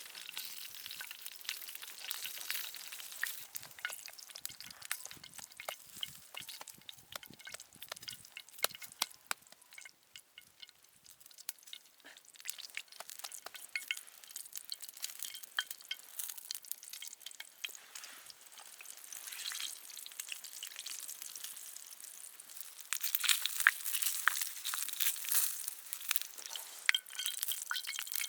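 Food sizzling and crackling in a pan, with a dense spatter of small pops that grows louder about three-quarters of the way through.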